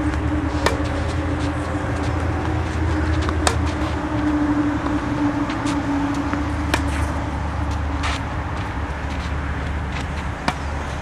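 Tennis rally: a ball struck by rackets, about six sharp pops one to three seconds apart, over a steady low hum.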